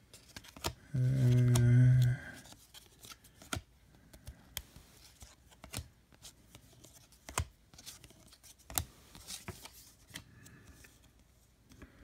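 Baseball trading cards being flipped through by hand, their edges snapping and clicking at irregular intervals as each card is moved to the back of the stack. About a second in, a person hums a short, level 'hmm' for about a second.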